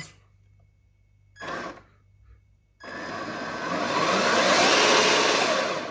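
The HG P602 RC truck's electric motor and drivetrain running in the low range of its two-speed gearbox. A brief blip comes about a second and a half in, then a longer run from about three seconds in that swells to full throttle and eases off.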